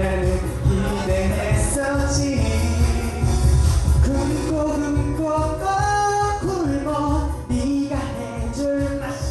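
Pop song with singing over a steady bass beat.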